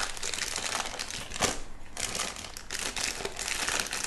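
Clear plastic bag crinkling and rustling as a small handheld recorder is pulled out of it by hand, with a sharper crackle about one and a half seconds in.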